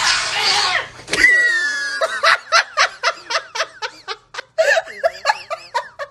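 A cat hisses and gives a short falling yowl as the two cats clash, then a person laughs hard in quick bursts, about four a second, for several seconds.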